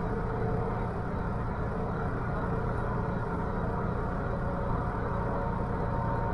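TTC subway train running through a tunnel: a steady rumble of wheels on rails, with a faint steady hum over it.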